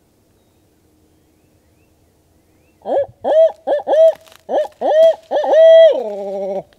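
Barred-owl hooting blown loud and close on an owl locator call, a turkey hunter's call for making a roosted gobbler shock-gobble. About seven short rising hoots come in quick succession, and the last is drawn out into a wavering, falling note.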